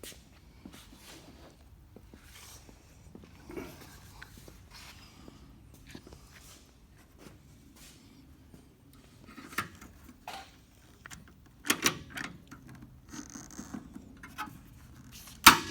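Scattered light clicks, taps and rubbing of hand tools and parts being handled during fender fitting, with a sharper knock near the end.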